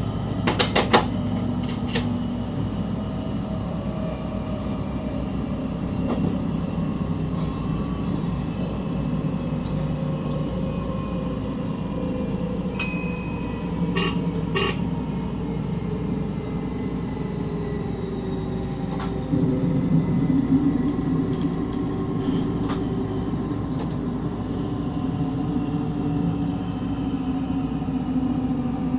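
Electric stopping train running, heard from the driver's cab: a steady rumble with a faint motor whine that slowly shifts in pitch. Sharp clicks come about a second in and twice near the middle.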